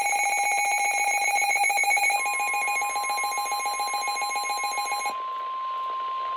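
An electronic alert beeping in a rapid, even pulse that cuts off about five seconds in. About two seconds in, it is joined by the steady single-pitch warning alarm tone of an NWS weather radio alert, which carries on alone after the beeping stops.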